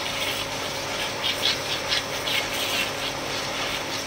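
High-pressure washer jet hissing as it blasts caked mud off a tractor's fabric canopy, the hiss coming and going in patches as the spray moves. Under it runs the steady hum of the 1 HP electric pressure-washer pump motor.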